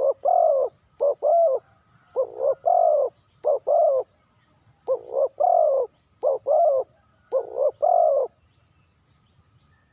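Spotted dove cooing: about seven phrases of two or three low coos, each ending in a longer note, then it stops about eight seconds in.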